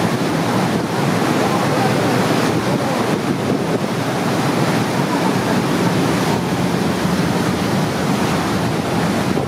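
Steady rush of churning water in a moving boat's wake, with wind buffeting the microphone.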